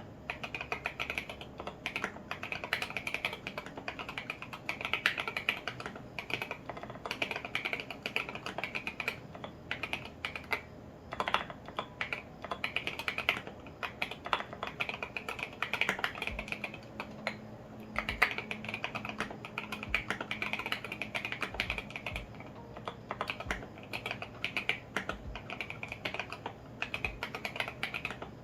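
Continuous fast typing on a custom Tofu65 acrylic-case mechanical keyboard with lubed and filmed Alpaca V2 linear switches and SA ABS keycaps. It is a dense, unbroken stream of keystroke clacks.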